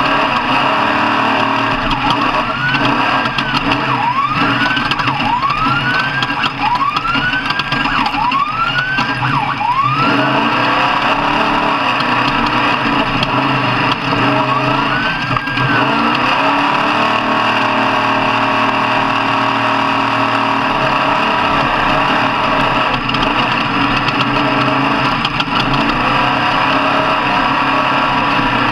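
An off-road truck engine revved hard about six times in quick succession, then once more a few seconds later. Each rev climbs in pitch, levels off and drops away suddenly, over the steady noise of running engines.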